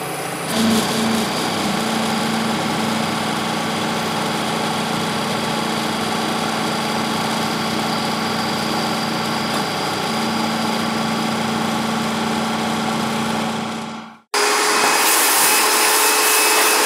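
Milling machine cutting a slot in a tool-holder block with a roughing end mill: a steady spindle hum under the grinding hiss of the cutter in the metal. About fourteen seconds in it cuts off abruptly to a louder, brighter stretch of the same machining with a higher hum.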